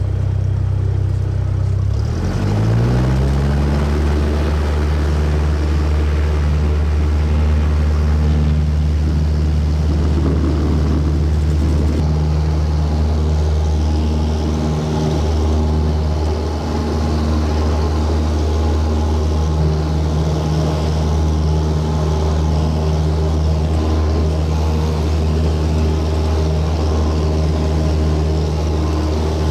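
Single-engine Cessna's piston engine and propeller, heard from inside the cabin, rising quickly in pitch about two seconds in as the throttle goes to full power for takeoff. It then holds a steady drone through the takeoff roll and climb-out.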